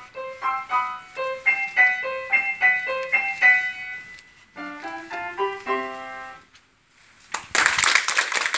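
Upright piano played with quick repeated melody notes, then a rising run of lower notes into a held final chord that ends about six and a half seconds in. After a short pause, an audience breaks into applause, louder than the piano.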